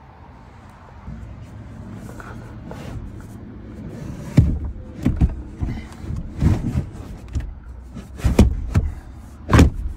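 Dull knocks and thumps, about eight over the last six seconds, as a carpeted fiberglass subwoofer box is pushed and fitted into place in a pickup truck's cab, over a low rumble.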